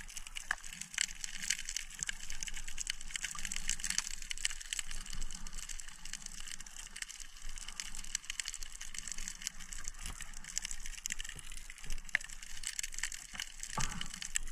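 Underwater sound picked up by an action camera on a rocky reef: dense, irregular crackling clicks over a faint low rush of water.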